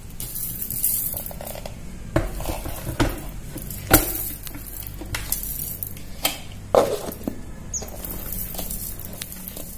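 Stainless-steel mixer-grinder jar being handled: several sharp knocks and clinks as the jar, loaded with biscuits and sugar, is set on the motor base and its plastic lid is pressed on.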